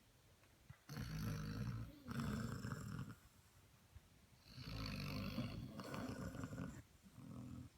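Basset hound puppies snoring in long breaths, each lasting one to two seconds, in two spells with a quiet pause of about a second and a half between them.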